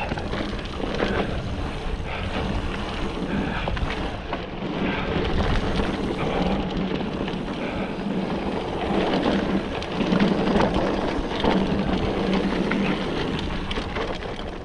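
Orbea Laufey hardtail mountain bike ridden fast down a dry dirt trail: steady tyre noise on the dirt with frequent rattles and knocks from the bike over bumps and roots, and wind buffeting the camera microphone.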